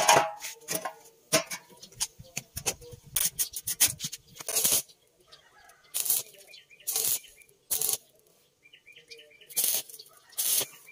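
Stick (arc) welder's arc crackling in a string of short bursts, each under half a second, as tack welds are struck on square steel tubing.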